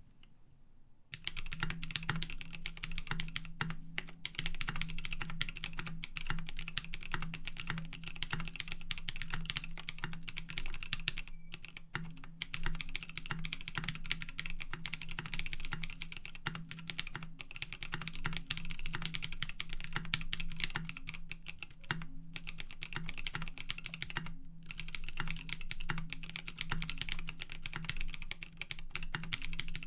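Continuous fast typing on a KBD D60 mechanical keyboard with unlubed NovelKeys Cream linear switches, a polycarbonate plate and PBT keycaps. It starts about a second in, pauses briefly a few times, and runs over a steady low hum.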